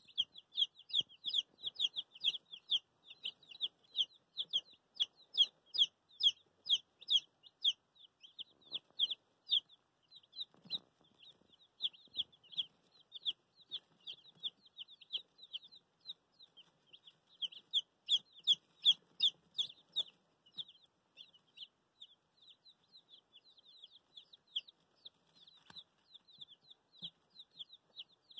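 A brood of two-day-old silkie chicks peeping: a constant stream of short, high-pitched chirps from many chicks at once, several a second. The peeping is busiest in the first several seconds and again about two-thirds through, and grows softer toward the end.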